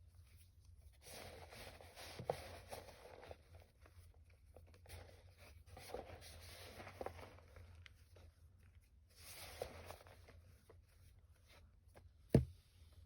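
Reformed gym chalk crumbling and crunching under the fingers in three soft bouts with small crackles, then one sharp knock near the end.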